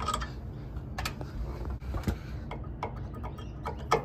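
Scattered light metallic clicks and ticks as a valve core tool is fitted to a brass Schrader service port on a copper coil header and turned to tighten the valve core. A low steady hum runs underneath.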